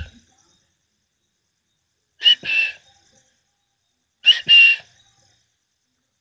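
A person whistling twice, about two seconds apart, each time a breathy two-part whistle: a quick short note, then a longer one at a steady pitch.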